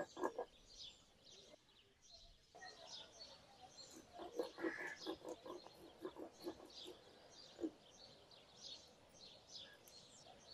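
Stone roller grinding wet coriander-and-chilli chutney on a flat stone slab: faint rubbing, crushing strokes, busiest between about four and eight seconds in. Small birds chirp faintly throughout.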